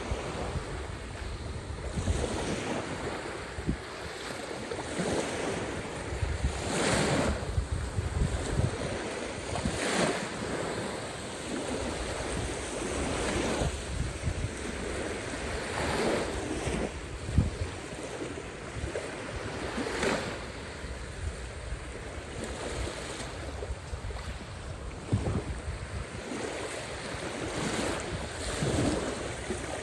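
Caspian Sea waves breaking one after another, each swelling into a wash of surf and fading, every few seconds.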